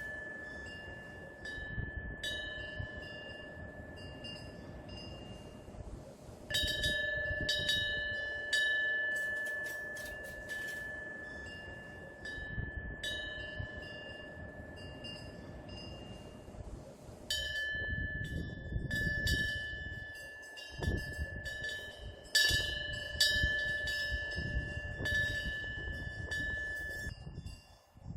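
Korean temple eave bell (pungyeong), a small bronze wind bell, ringing as the wind swings its clapper. It gives a clear tone that rings on and slowly fades, struck again every second or so, with fresh clusters of strikes about six seconds in and from about seventeen seconds on. A low rumble runs underneath.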